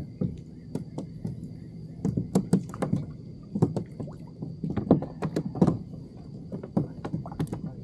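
Irregular knocks, taps and clatter on a plastic fishing kayak as a small bluefish is landed and handled aboard. Beneath them is a faint steady high whine.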